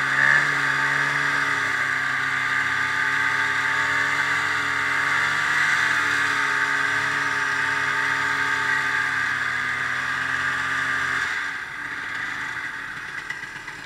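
Ski-Doo snowmobile engine running steadily at a constant pitch while riding. About eleven seconds in, the engine sound drops away sharply to a much quieter level.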